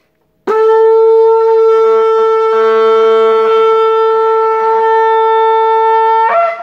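Shofar sounded in one long, steady blast of nearly six seconds, which breaks upward in pitch just before it stops.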